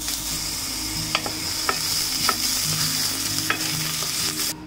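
Chopped garlic and ginger paste sizzling in hot oil in a pan, stirred with a wooden spatula that knocks against the pan about five times. The sizzle cuts off suddenly near the end.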